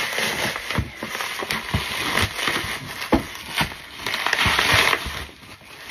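Bubble wrap crinkling and crackling as it is handled and pulled off, with many small clicks through it.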